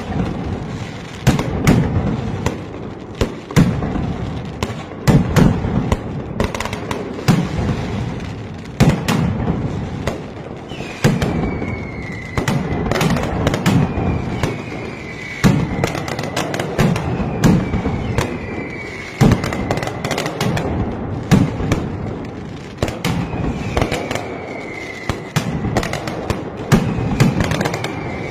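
Mascletà firecrackers going off in a dense, loud string of sharp bangs, irregular in rhythm. From about ten seconds in, falling whistles repeat roughly every two seconds over the bangs.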